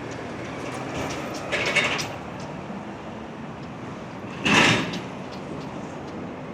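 Steady city traffic noise, with two short, louder hissing bursts, one about one and a half seconds in and a stronger one about four and a half seconds in.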